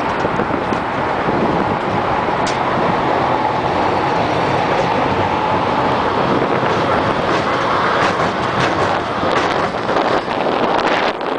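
Steel roller coaster train climbing its lift hill: a steady clatter and rumble of the lift chain and the cars, with a faint held whine in the middle and sharper clicks near the end as it nears the crest.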